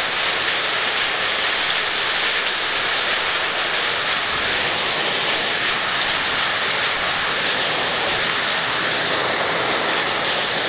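Heavy rain mixed with hail pouring down in a steady, dense hiss.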